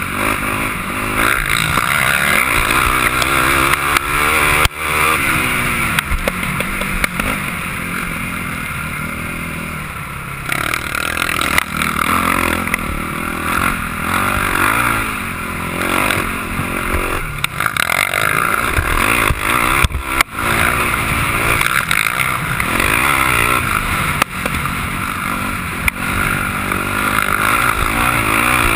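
Sport quad engine revving up and down continuously as it is ridden hard over a dirt motocross track, heard close from the machine itself. The sound drops off sharply and briefly twice as the throttle is chopped.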